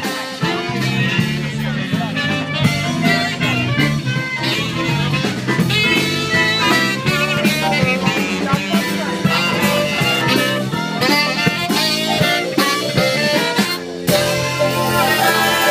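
A live jazz band plays an upbeat number, with saxophone, trumpet, guitar and drums. The music jumps abruptly to a different passage about fourteen seconds in, at an edit.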